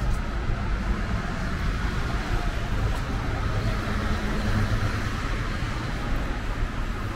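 Steady road traffic noise, the hiss and rumble of cars on a city street, swelling in the middle as a car passes.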